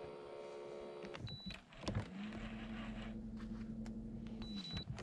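A bass boat's electric trolling motor running with a steady whine: a higher-pitched run that stops about a second in, then after a short break a lower, steady whine for about three seconds that winds down and stops near the end. A few light clicks over it.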